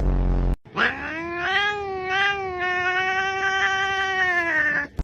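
A cat yowling: one long drawn-out call of about four seconds that rises at the start, holds steady with a slight waver and falls away at the end. A brief low rumble comes just before it.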